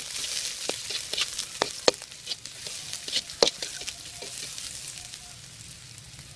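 Chopped onion, capsicum and carrot sizzling in a kadhai while a spatula stirs them, clicking and scraping against the pan. The stirring stops about four seconds in and the sizzle fades.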